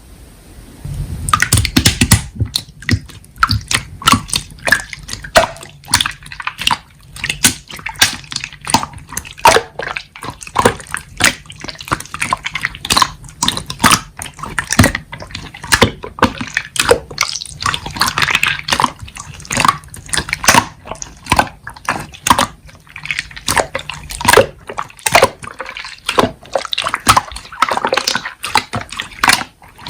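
Slime being squished and pressed, a fast, irregular run of wet clicks and pops.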